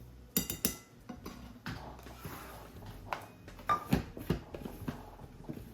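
Kitchen utensils clinking and tapping against a mixing bowl as dry ingredients are added to a batter. A few sharp, ringing clinks come about half a second in, followed by scattered lighter knocks and taps.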